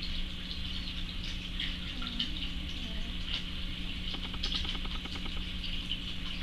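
A sleeping domestic cat snoring softly, with a rapid rattle a little past halfway, over a steady hum and hiss.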